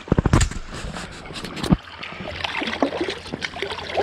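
Sea water splashing and sloshing around a swimmer as he hauls himself out onto a rock. A quick run of knocks comes at the start and a single sharp knock about 1.7 seconds in.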